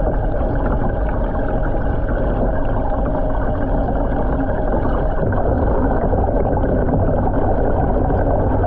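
Steady churning water of a swirling vortex in a tank, with a low hum underneath.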